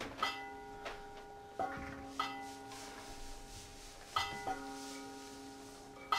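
Bell-like struck metal percussion played live: a strike every half second to two seconds, each ringing on with several steady tones at different pitches that overlap and slowly fade.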